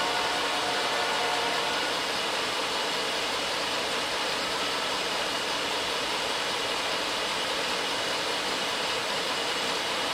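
Steady rushing of air from the Ford F250's climate-control blower running at high speed inside the cab, with the truck's engine running underneath.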